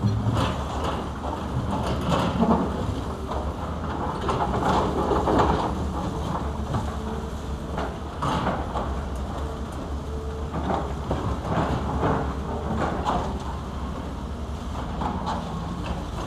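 Several hydraulic excavators running, their diesel engines giving a steady low hum, while the buckets dig and scrape through broken concrete and rubble, with irregular crunches and clatters of debris several times.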